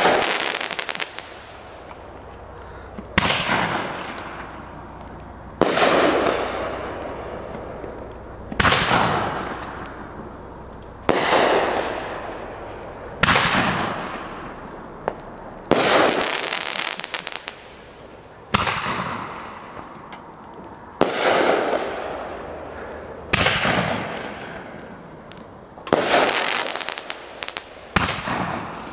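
Fireworks going off one after another, about a dozen shots at roughly two-and-a-half-second intervals. Each is a sudden bang that trails off over a second or two.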